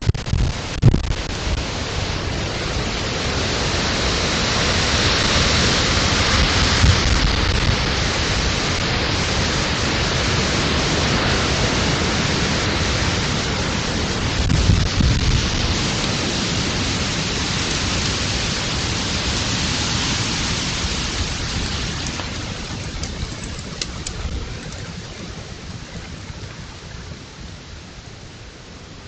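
Wind blowing through forest trees and buffeting the trail camera's microphone in gusts with low rumbles. It dies down toward the end.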